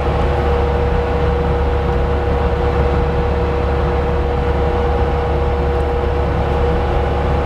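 Bobcat T300 compact track loader's diesel engine running steadily at high rpm, around 2000, with the hydraulics driving the SG60 stump grinder, giving a low drone and a steady whine.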